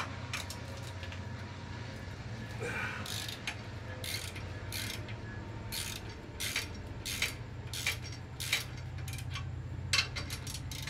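Hand ratchet wrench clicking in short, irregular runs while it turns bolts on a pickup's front bumper mount, over a steady low rumble from a passing train.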